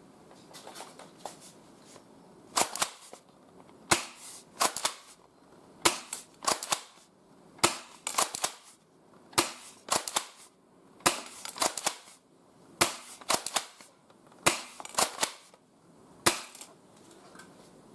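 Double Eagle M401 spring airsoft shotgun being pumped and fired again and again: sharp clacks in quick pairs and threes, about ten cycles in a row, stopping a couple of seconds before the end.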